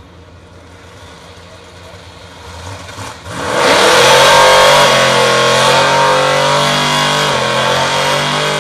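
Drag-racing Ford Mustang engine idling, then revved hard about three seconds in and held at high revs through a burnout, with the rear tyres spinning and smoking.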